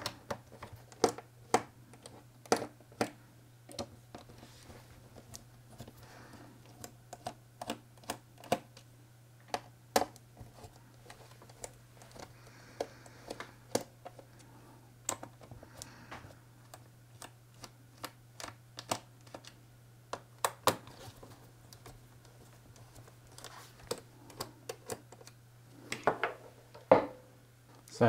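Irregular small clicks and taps of Phillips screws being backed out of a laptop's plastic bottom cover and picked out by hand, with a quick cluster of louder clicks near the end.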